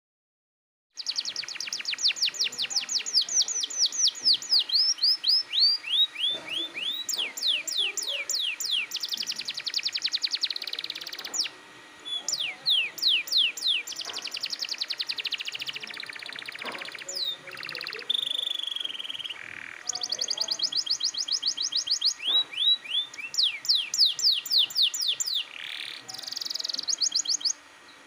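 Canary singing a long, loud, unbroken song of fast trills made of quick down-sweeping high notes, changing from phrase to phrase, with a held whistle about two-thirds of the way through. It is the full, insistent song of a canary in strong song ('gacor ngotot'). The song starts about a second in and cuts off abruptly near the end.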